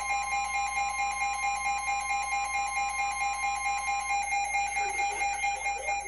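NOAA Weather Radio warning alarm: a steady alert tone that cuts off about four seconds in, over a second steady tone and fast pulsing alarm beeps from a weather radio receiver. They are the alert tones for a Winter Storm Warning, with one station's broadcast running behind the other.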